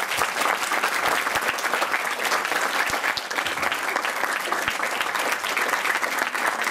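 An audience applauding, with steady clapping from a packed hall.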